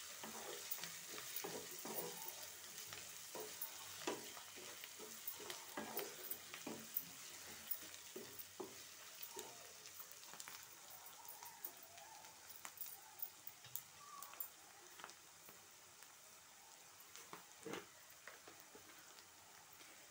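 Sliced onions frying in oil in a non-stick wok with a light sizzle, a spatula scraping and tapping through them in a run of quick stirring strokes. The stirring thins out after about ten seconds, leaving mostly the sizzle with an occasional stroke.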